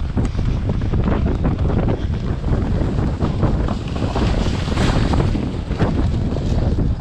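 Heavy wind buffeting a helmet-mounted camera's microphone at a gallop, with a rapid jumble of hoofbeats from the horse and the field around it.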